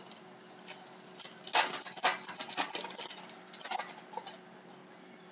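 Hockey trading cards being handled and slid against one another: a few short flicks and rustles, clustered about one and a half to three seconds in and again near four seconds.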